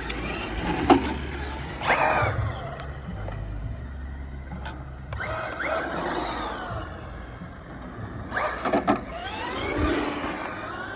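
Traxxas Slash RC short-course truck with a Velineon VXL brushless motor driving hard. The motor whine rises and falls in pitch as it accelerates and slows, with several sharp knocks along the way.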